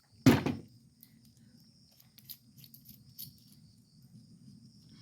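A single sharp knock of metal fan parts being handled, followed by a few faint clicks, over the steady high chirring of crickets.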